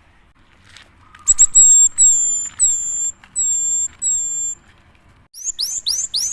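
Cinereous tit (gelatik batu) singing: a series of about five high, even whistled notes, then near the end a quick run of four sharp down-slurred notes.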